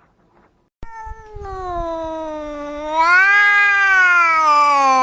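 A domestic cat giving one long yowl. It starts about a second in and lasts about four seconds, growing louder partway through. Its pitch slowly falls, rises briefly, then falls again before it cuts off.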